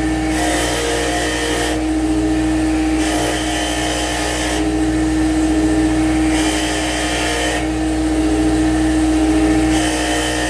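Heavy-duty bench grinder with wire brush wheels running steadily with a constant hum. Four times, each for about a second and a half, a workpiece is pressed against the spinning wire brush, giving a harsh scratching hiss: deburring cut pieces of old blind material.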